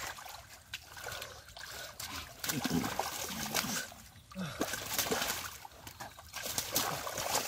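Muddy shallow water splashing and sloshing irregularly as large fish thrash and are grabbed by hand.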